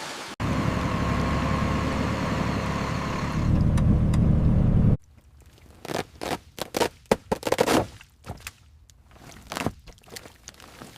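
A machine running steadily for about four and a half seconds, louder near the end, then cutting off suddenly; after it come scattered short metallic clanks and scrapes of parts being handled.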